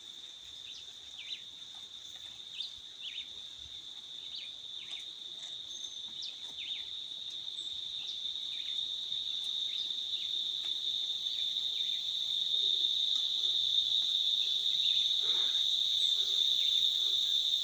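Steady high-pitched insect chorus that grows gradually louder, with brief faint chirps scattered through it.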